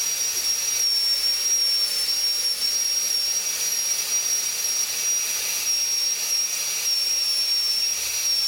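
High-speed air-turbine dental handpiece running with a fine bur as it shapes a soft composite buildup on a plastic molar: a steady high-pitched whine over a hiss, its pitch dipping slightly now and then.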